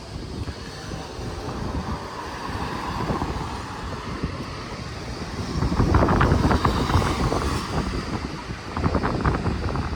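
Road traffic going by, with wind buffeting the microphone; a vehicle passes louder about six seconds in.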